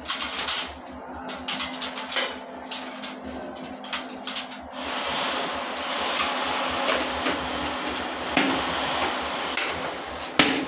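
Aluminium door-frame cover strip knocking and clicking against the frame as it is handled and tapped into place along the head of the frame: a string of irregular sharp knocks, the loudest near the end. A steady rushing noise comes in about halfway through.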